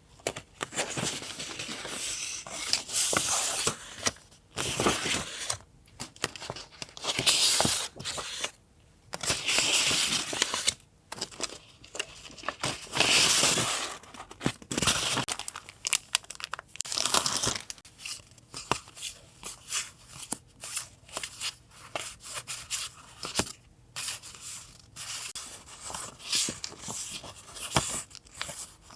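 Paper being torn and crinkled by hand in a string of noisy strokes each lasting about a second. In the second half these give way to quicker, lighter rustling and ticking as the paper pieces are handled.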